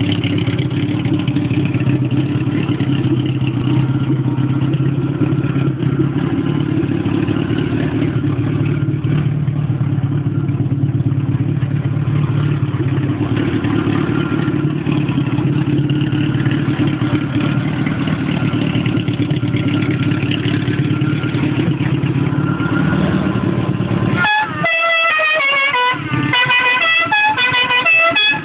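A modified Fiat 126's engine running steadily, a low even note that shifts slightly in pitch about halfway. About 24 seconds in, the engine sound gives way to music with a plucked guitar melody.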